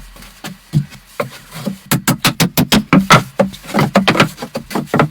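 A rapid series of sharp knocks or taps, a few scattered at first, then about four or five a second from about two seconds in.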